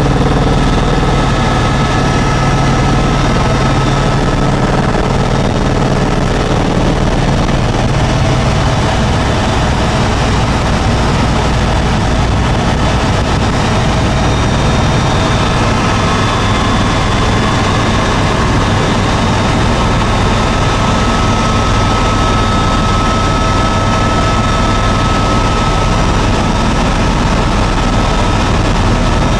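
Eurocopter EC130 ECO-Star helicopter in cruise flight, heard from inside the cabin: a loud, steady mix of low main-rotor beat and high turbine whine that holds unchanged throughout.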